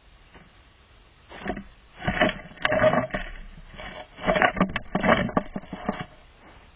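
A hedgehog bumping and shoving a trail camera across paving stones: a run of loud scraping and rubbing knocks on the camera, starting about a second and a half in and stopping about a second before the end.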